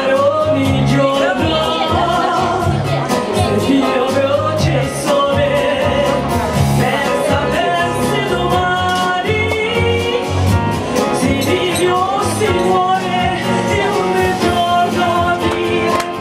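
A woman singing a song through a microphone and PA, with vibrato, over electronic keyboard accompaniment with a steady, regular bass line.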